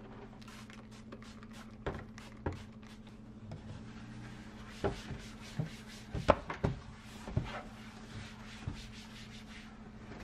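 A hand rubbing along the bottom of an empty kitchen drawer, with scattered light knocks and taps against the drawer. The knocks come thickest in the middle, over a steady low hum.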